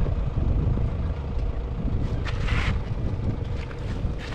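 A vehicle engine idling: a steady low rumble with a constant hum above it, and a short rustle about two seconds in.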